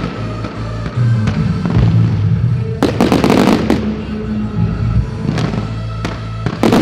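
Fireworks going off: a dense cluster of bangs and crackles about three seconds in, scattered single cracks after it, and another burst near the end, over music playing throughout.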